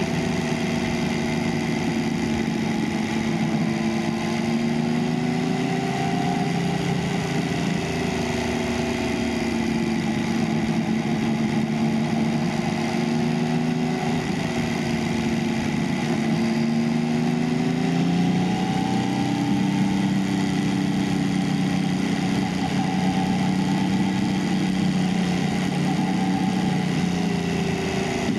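Motorcycle engine running at cruising speed, its pitch drifting gently up and down with the throttle and climbing about two-thirds of the way through, over a steady rush of wind and road noise.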